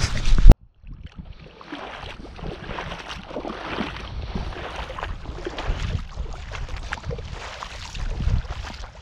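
A couple of loud knocks on the microphone in the first half second, then footsteps wading and sloshing through ankle-deep water in an uneven rhythm, with wind rumbling on the microphone.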